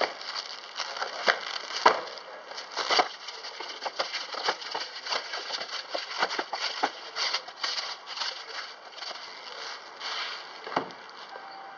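Clear plastic wrapping being pulled and torn off a cardboard box: a run of irregular crinkling and crackling with sharp snaps, loudest about two and three seconds in, and a single knock near the end.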